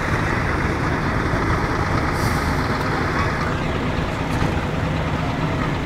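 Lorry diesel engines idling together, a steady low rumble, with a brief high hiss about two seconds in.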